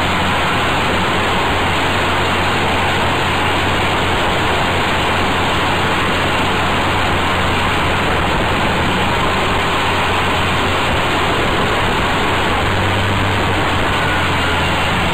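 Adly GK125R buggy on the move at a steady speed: its small 8 hp engine running under a heavy, even rush of wind on the side-mounted camera's microphone.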